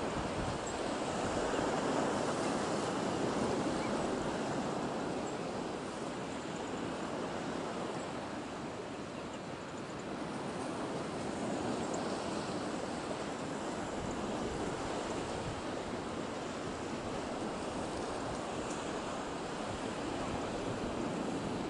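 Sea surf washing on the shore, a steady rush that swells and eases slowly.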